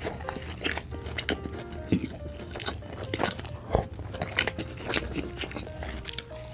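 Close-miked biting and chewing of a burger: irregular mouth smacks and small crunches, the loudest bite about halfway through. Background music with held notes plays under it.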